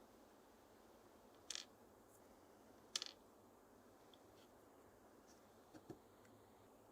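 Near silence with a few faint, short clicks: two about a second and a half apart, the second the loudest, then a softer tap near the end.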